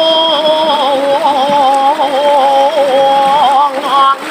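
A solo voice singing long held notes with a wavering pitch and quick ornamental turns, as in a vocal exercise. It breaks off briefly near the end.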